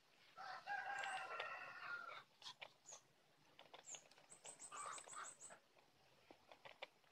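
A rooster crowing once, faint, one long call of about two seconds. A few seconds later a small bird gives a quick, very high trill of about eight notes.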